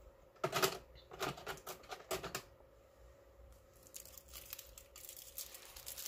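Sunglasses and plastic being handled while someone rummages in a plastic drawer: a few quick clattering, rustling bursts in the first two seconds, then softer crinkling of plastic wrap from about four seconds in.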